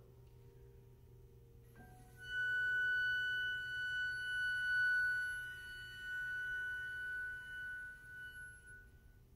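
Concert flute holding one long high note, the closing note of a flute-and-piano piece. It enters about two seconds in, swells and eases, and fades out near the end over a faint lingering piano tone.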